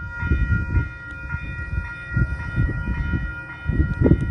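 Diesel locomotive's air horn held in one long, steady chord of several tones, over an uneven low rumble.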